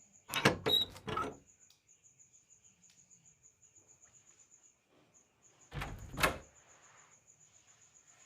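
Two short clusters of loud knocks and thuds, one just after the start and another about six seconds in, each over within about a second. Behind them a cricket chirps steadily, a high, rapid, even pulsing.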